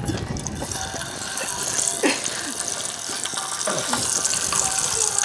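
Masala-coated fish pieces sizzling and crackling as they deep-fry in hot oil in a small pan.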